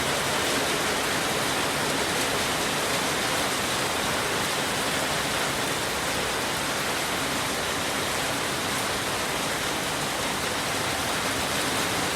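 Steady rain falling, an even hiss of water with no break.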